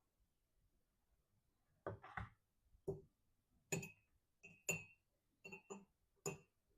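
A mixing brush stirring white paint into a glass of water, tapping and clinking against the glass in a series of irregular clinks, several of them ringing briefly.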